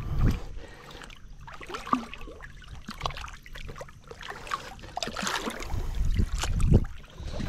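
Water sloshing, trickling and splashing at the surface as a barramundi is held by the lip and released. The splashing grows louder about six seconds in, as the fish kicks and swims away.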